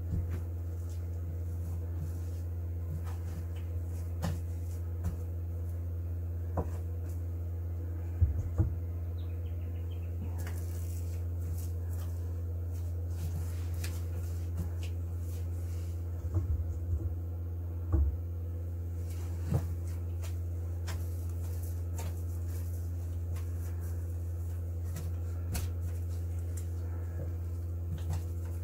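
A steady low hum runs throughout, under light knocks and taps from a brush working resin and glass cloth in a cramped fibreglass hull compartment; the loudest knocks come about eight and eighteen seconds in.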